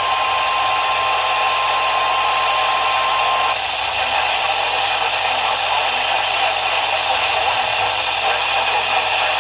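Radio static and hiss with a single steady emergency-alert tone that cuts off about three and a half seconds in, leaving only the static.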